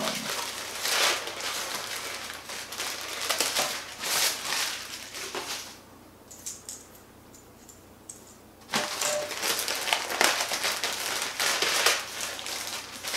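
Packaging wrap crinkling and rustling as it is peeled off drone parts by hand. It stops for about three seconds in the middle, then crinkles again as a second wrapped part is opened.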